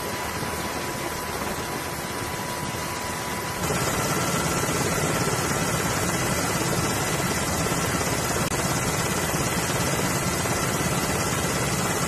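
Steady helicopter noise, as heard from aboard the aircraft, with a faint high whine. About four seconds in it gets a little louder and the whine shifts to a different pitch.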